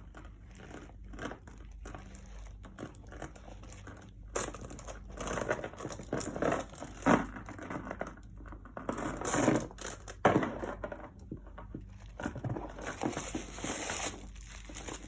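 Crinkling and rustling of wrapping as a handbag is handled and opened, in irregular bursts that grow louder from about four seconds in.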